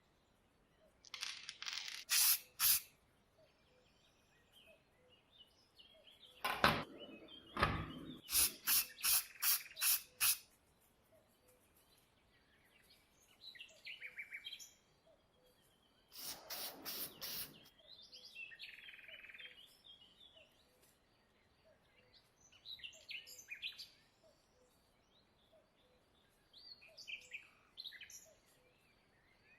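Birds chirping intermittently, interrupted by three bursts of short, sharp strokes, the middle one a run of about eight in quick succession.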